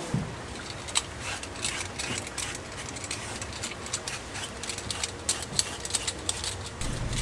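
Kitchen food-preparation sounds: a quick, irregular run of light clicks and taps, several a second, over a low steady hum.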